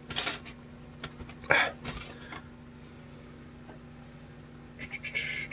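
Straight lengths of guitar fret wire are set down on a countertop with a brief light metallic clatter. A soft handling knock follows about a second and a half in, then short rustling near the end. A faint steady hum runs underneath.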